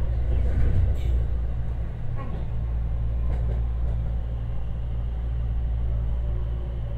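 Cabin running noise of a JR West 225-series electric train: a steady low rumble of wheels on the rails, with a few faint clicks.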